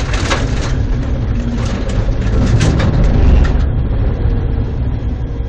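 Race car's engine and drivetrain heard inside the cabin, running low as the car slows, with scattered sharp clicks and rattles over the first three and a half seconds.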